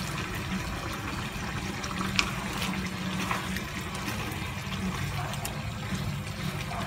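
Chicken afritada simmering in tomato sauce in a nonstick frying pan, bubbling steadily while it is stirred with a plastic spatula. One sharp knock about two seconds in.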